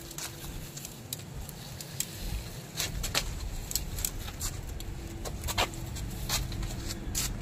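A coil of quarter-inch soft copper AC tubing being unrolled across a concrete floor, with scattered light ticks and scrapes of the tube on the concrete over a steady low rumble.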